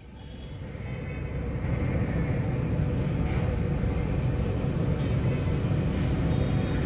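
A steady low rumble that swells over the first two seconds and then holds level.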